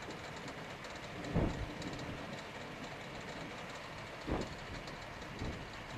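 Steady wind rushing over an open outdoor microphone, with three short gusts buffeting it.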